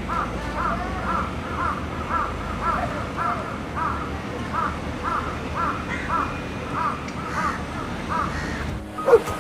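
A bird giving short, evenly repeated calls, about two a second, over a faint background hiss. Near the end a different, louder call cuts in.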